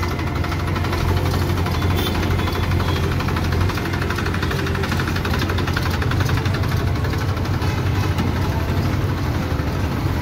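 Diesel tractor engine running steadily at idle close by, a Massey Ferguson 241 DI with its three-cylinder diesel, while a JCB backhoe loader's engine runs alongside.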